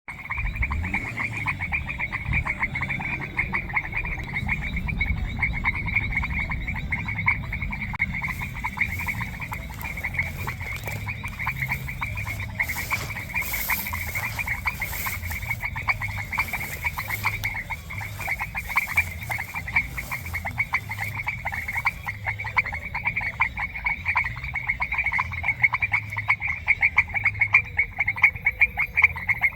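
A chorus of frogs calling continuously in a dense, rapid pulsing trill, with a low rumble underneath.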